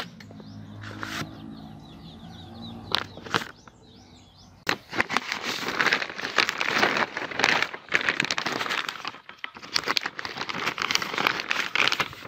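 Plastic greenhouse sheeting crinkling and crackling as it is moved, with a few clicks in the first seconds and dense crackling from about five seconds in.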